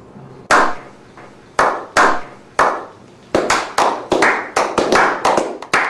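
A slow clap: single hand claps about a second apart, speeding up a little past halfway into quicker clapping by several people.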